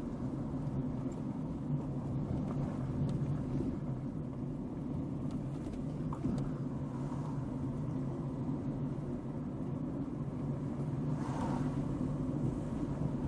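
A car driving slowly along a street: a steady low engine and road drone. About eleven seconds in, a brief hissing swell rises over it.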